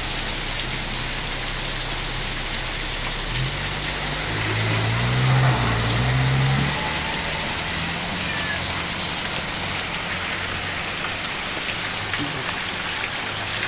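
Heavy rain falling steadily. About three seconds in, a pickup truck's engine revs for a few seconds, rising in pitch, as it tries to climb a rain-soaked muddy slope.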